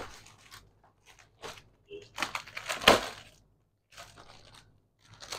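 Folded tops and their plastic wrapping rustling and crinkling as they are handled and pulled from a stack. The rustling comes in irregular bursts, busiest about two to three seconds in.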